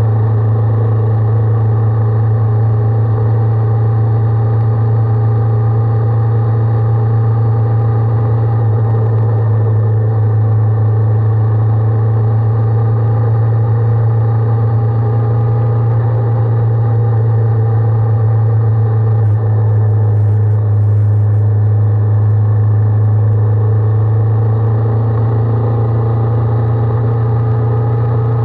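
Honda 400X's parallel-twin engine running at a steady cruising speed, a loud, constant low hum with many overtones and no change in pitch.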